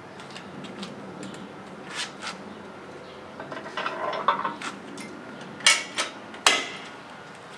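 Metal clinks and rattles from a swing-out hitch bike-rack adapter and the bikes on it as the rack is swung back into place, ending with three sharp metallic clanks about two-thirds of the way through.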